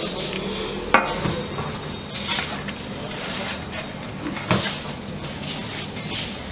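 Metal spatula clanking and scraping on a black metal baking tray as a large grilled sandwich is slid onto it. There are two sharp metallic knocks, the first about a second in with a short ring and the second about four and a half seconds in.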